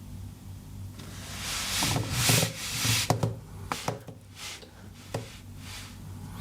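Rubbing and scraping handling noise with several sharp knocks and clicks, loudest in the first half, over the steady low hum of a running desktop PC and its hard drive.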